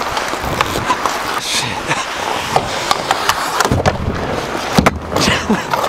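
Hockey skate blades scraping and carving on the ice with sticks clacking, then a collision and fall onto the ice about four seconds in, with a couple of heavy thuds.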